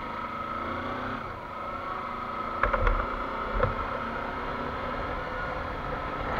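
Kawasaki Versys-X 300 parallel-twin motorcycle engine running steadily as the bike is ridden, with a few short knocks about two and a half to three and a half seconds in.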